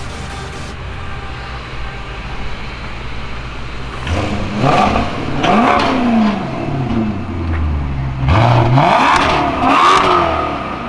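Car engine running with a steady low drone, then from about four seconds in revving up and dropping back several times as it accelerates.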